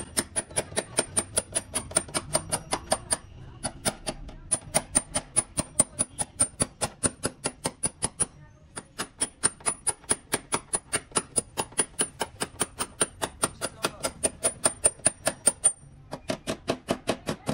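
Rapid, even tapping, about five strikes a second, in long runs broken by short pauses, with a thin high ring behind each run.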